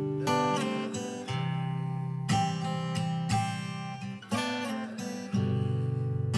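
Background music: an acoustic guitar strumming chords, with a fresh strum about once a second.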